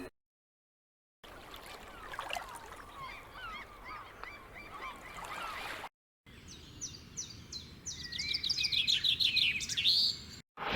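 Birds calling in two short clips. First, many overlapping calls at once, as from a flock. Then, after a short break, a run of quick high chirps, about three a second at first and then faster, ending in a rising note.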